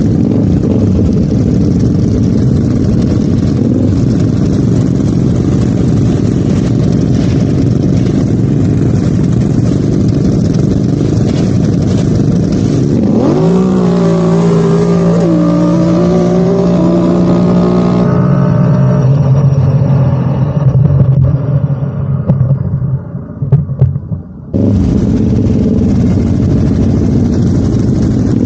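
Kawasaki ATV engine running under way, rising in pitch as it revs about halfway through, then holding a steadier lower note before the sound cuts abruptly back to a loud rumble.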